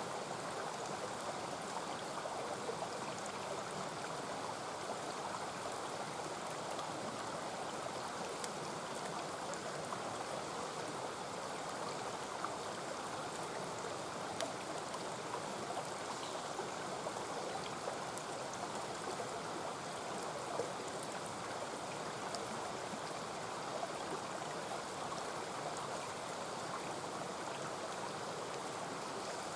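Mountain stream running in a steady rush, with faint scattered crackles from a campfire.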